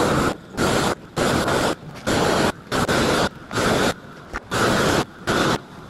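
Propane roofing torch firing in about eight short blasts, each under a second with brief gaps between. It is heating the seam of granulated torch-down rubber modified roofing to bleed it into the smooth base layer.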